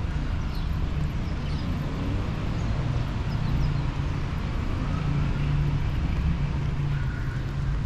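Steady low rumble of city traffic, with a few faint high chirps over it.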